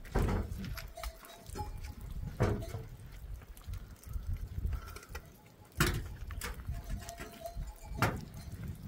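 Heavy knocks and thuds from a hollow concrete block and a wooden plank door being handled, four loud knocks a few seconds apart with scraping and shuffling between. A farm animal calls faintly behind them.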